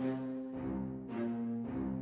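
Background film score: sustained low, string-like notes, a new note or chord coming in about twice a second.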